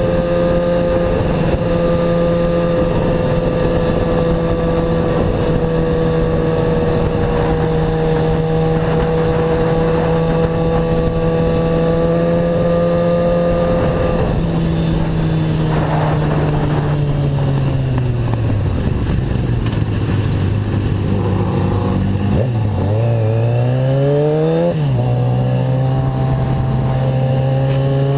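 Motorcycle engine running at a steady cruising speed, heard from on the bike with wind rush. About halfway through the engine note falls as the bike slows. It then climbs twice as it accelerates and settles into a steady, lower note.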